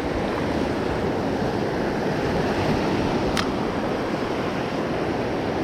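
Surf washing onto the beach in a steady rush, with wind buffeting the microphone. A single faint click sounds about three and a half seconds in.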